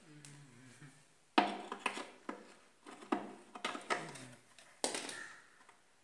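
Knocks and clatter of a homemade mini concrete mixer's rusty steel drum being handled on its wooden frame. About seven sharp knocks come over a few seconds, the first the loudest.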